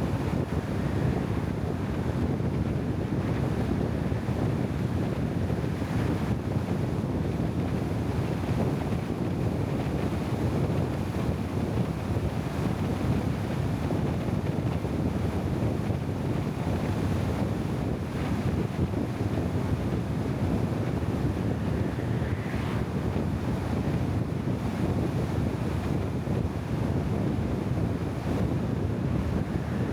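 Steady wind noise buffeting the microphone, a constant low rumble with no distinct events.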